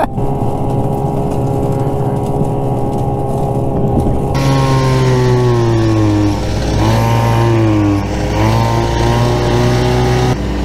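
Vintage Arctic Cat snowmobile two-stroke engines running at trail speed. About four seconds in, the sound switches to the ridden sled's own engine, whose pitch drops and climbs back twice as the throttle is eased off and opened again.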